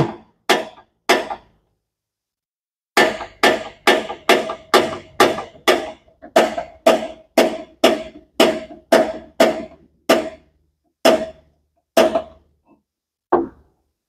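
Dometic propane cooktop's electronic igniter sparking, a sharp click a bit more than twice a second with a short pause about a second in, while it clears the air out of the propane line. The clicking stops near the end as the burners light.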